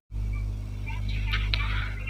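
Steady low electrical hum with room noise that starts abruptly and then holds at an even level. Faint, indistinct higher sounds come and go above it.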